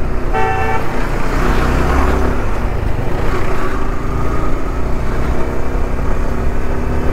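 Motorcycle riding through town traffic: a steady engine rumble mixed with wind and road noise. A vehicle horn sounds briefly in the first second.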